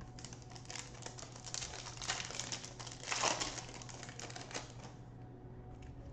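A trading-card pack wrapper being torn open and crinkled by hand, a busy run of crackles and small clicks that is loudest two to three seconds in.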